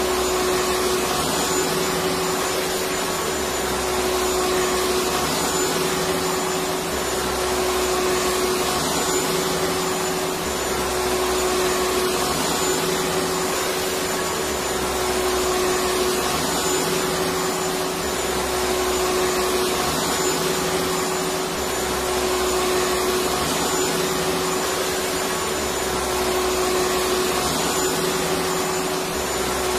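Electric vacuum cleaner running steadily: an unbroken rush of air with a constant hum through it.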